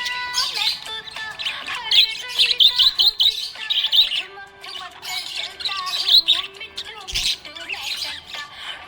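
Small pet parrots chirping and chattering in quick, rapid calls, over steady background music.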